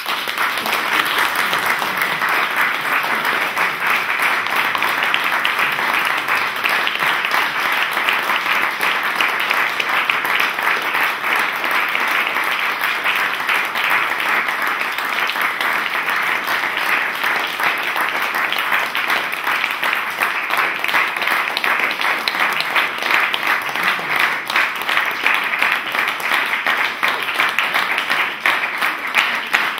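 Applause from a small seated audience, starting all at once and holding steady, with single claps standing out a little more near the end.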